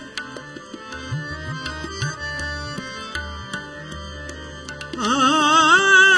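Harmonium holding sustained notes in a kirtan interlude, with tabla keeping time and the bass drum's strokes sliding up in pitch. About five seconds in, a singer's voice comes in on a long, wavering held note, the loudest part.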